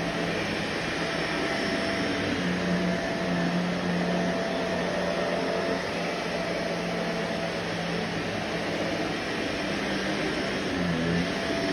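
Vacuum cleaner motor running steadily: a continuous whooshing whir with a low hum.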